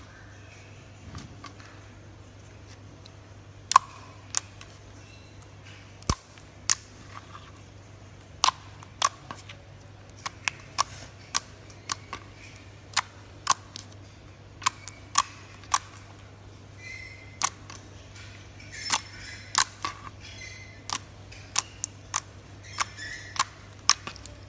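Clear slime with copper foil flakes being pressed and kneaded by fingers, giving sharp, irregular clicks and pops, roughly one or two a second.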